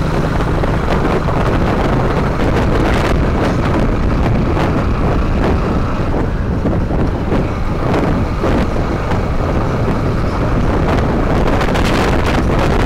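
Wind buffeting the microphone of a moving motorcycle, over the steady running of a Honda X-Blade 160's single-cylinder engine.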